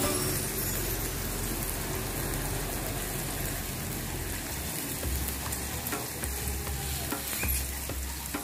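Chopped shallots and garlic sizzling in hot oil in a wok as they are sautéed until fragrant, with a few light clicks.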